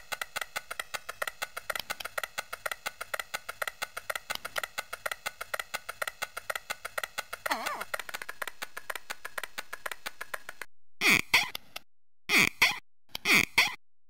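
Sampled Amiga cartoon sound effects: a fast, even ticking loop, about seven ticks a second, with a brief falling glide about seven and a half seconds in. It cuts off near eleven seconds, and a string of short, loud sounds follows, each dropping sharply in pitch, about a second apart.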